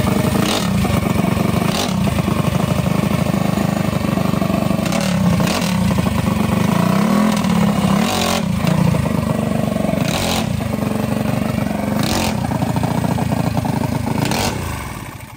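Small single-cylinder mini bike engine running loud and being revved, the pitch rising and falling, with several sharp pops. It dies suddenly near the end; onlookers say it blew its carburettor off.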